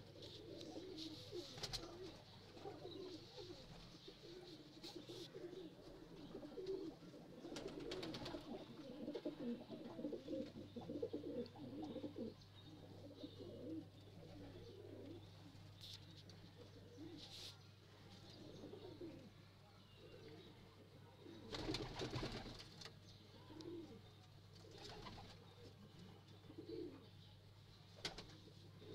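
Pakistani highflyer (bankay) pigeons cooing softly in a low, continuous murmur. The cooing is busiest in the first part and thins out later, broken by a few sharp clicks or knocks.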